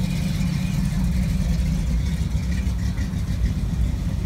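Hot rod engines running at low revs as the cars drive slowly past one after another: a steady, low engine sound.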